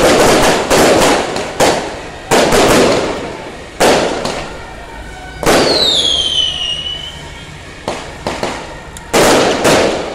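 Strings of firecrackers going off in several bursts, each a dense run of crackling pops that fades away. About midway a high whistle glides down for a second or so.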